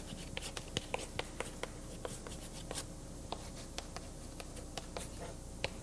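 Someone writing by hand: a run of small taps and scratching strokes, densest in the first three seconds and thinning out after that.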